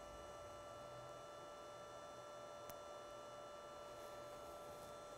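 Faint steady electrical hum with several high steady tones that hold their pitch, from the powered servo test stand, with a tiny tick about two and a half seconds in.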